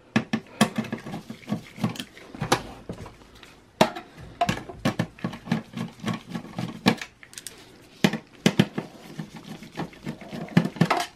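Irregular clicks and small metal clinks of a Phillips screwdriver working screws out of a motherboard in a metal computer case, with handling noise from the chassis.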